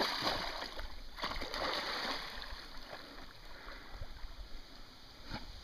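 Water splashing as a Flat-coated Retriever wades quickly out through the shallows of a lake, loudest in the first two seconds, then fading to soft lapping as the dog starts to swim.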